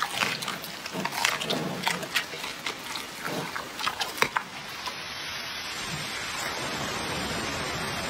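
Giant pandas chewing carrots: irregular sharp crunches and wet munching for about four and a half seconds, then a sudden switch to a steady hiss.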